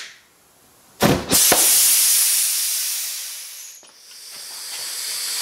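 Carb cleaner ignited inside an ATV tire goes off with a bang about a second in, popping the bead onto the rim, followed by a loud hiss that fades over about three seconds. About four seconds in a steady hiss rises again: air being sucked back into the tire through the open valve stem hole as the vacuum left by the explosion draws it in.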